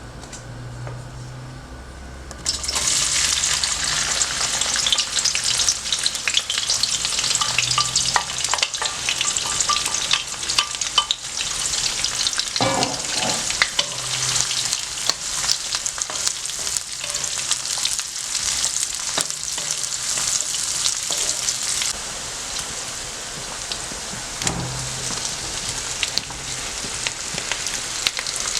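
Food dropped into hot oil in a pan about two and a half seconds in, then sizzling and crackling steadily, with occasional clicks of stirring.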